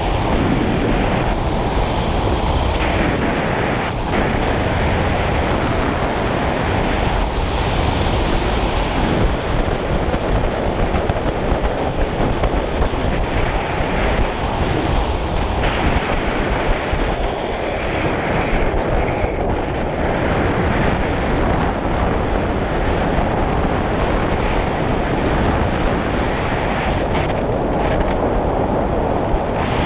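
Wind buffeting the microphone: a loud, steady rumbling noise with no clear engine note.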